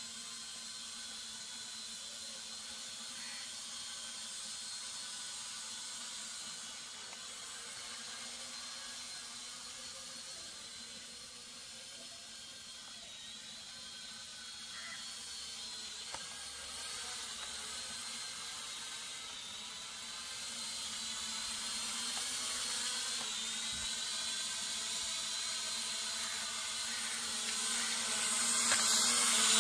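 Quadcopter drone's propellers whining in flight, the pitch wavering up and down as the motors speed up and slow. It grows louder in the last ten seconds or so as the drone comes closer.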